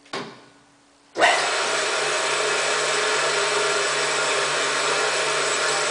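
Pilous ARG 220 Plus metal-cutting bandsaw switched on about a second in: its motor and worm gearbox start abruptly and the blade runs steadily and evenly, with no workpiece being cut.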